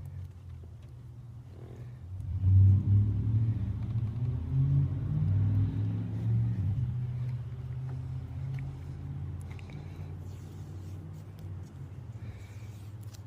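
Ford F-150's 5.4-litre V8 engine running. It gets louder about two seconds in, then settles back to a steady low hum.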